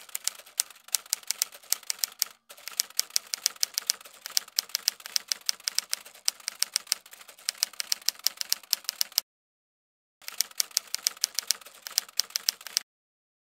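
Typewriter key clicks in rapid runs, a sound effect keeping time with text typing out on screen. They break off for about a second past the middle, start again, and stop shortly before the end.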